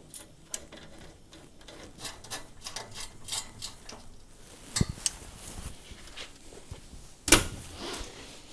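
Scattered metallic clicks and taps with two louder knocks, one about five seconds in and a sharper one near the end: the plinth of a range cooker being handled and fastened onto its mounting brackets.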